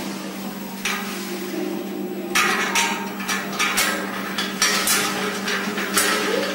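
Irregular metallic clattering and scraping on the steel pot and frame of a homemade porridge mixer, over a steady low hum. The clatter grows busier and louder a little past two seconds in.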